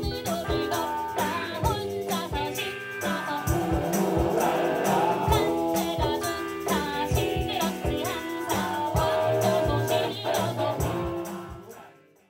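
A Korean traditional–Western fusion band playing live: a woman singing over a drum kit and percussion keeping a steady beat. The music fades out near the end.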